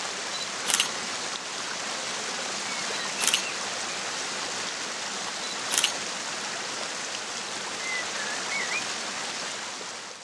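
Steady rushing of flowing water with a few faint bird chirps. Over it, three camera shutter clicks about two and a half seconds apart, each a quick double click.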